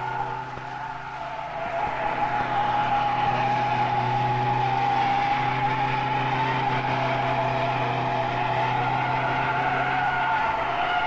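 Fiat 850 being driven at its limit around a wet test circle: the engine runs under load while the tyres give a steady, slightly wavering squeal as the car slides. It is a little quieter for the first two seconds.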